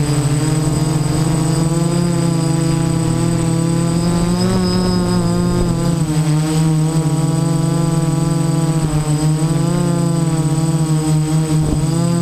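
Y6 hexacopter's six brushless motors and 10-inch propellers hovering with a steady multi-tone hum and a thin high whine. The pitch drifts gently up and down as the throttle is adjusted. It is heard from the GoPro mounted on the craft itself.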